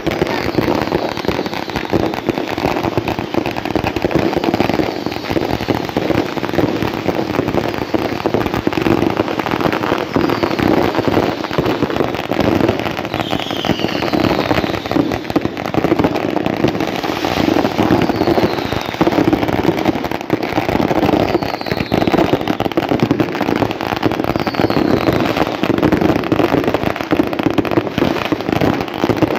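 Consumer fireworks going off in a continuous barrage: dense rapid crackling and popping of firecrackers and small bursts, with several short whistles falling in pitch scattered through.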